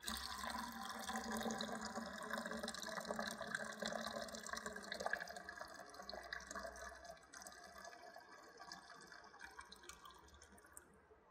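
Sodium sulfate solution poured from an aluminium foil tray of soaked aggregate into a plastic bucket: a stream of liquid splashing into the bucket, thinning to a trickle and drips over the last few seconds as the sample drains after its immersion in the sulfate soundness test.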